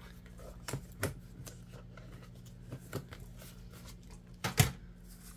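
Sheets of planner stickers being handled and sorted through: a few light paper rustles and taps, with a louder sharp double tap near the end, over a low steady hum.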